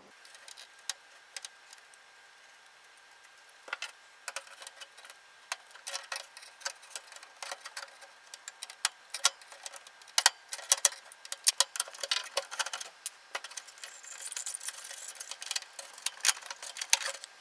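Scattered small clicks and light metallic taps, busier in the second half, from a soldering iron and hand tools working on the wires and sheet-metal chassis of an audio receiver while a small circuit board is desoldered and worked loose.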